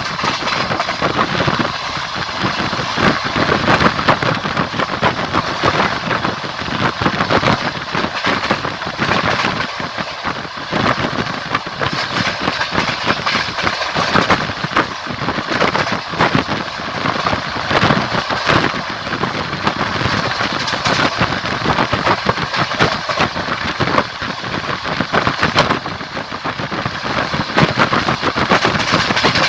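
A moving train's wheels clattering over the rails, with a steady rumble and hiss from the running train and a rapid, irregular run of knocks.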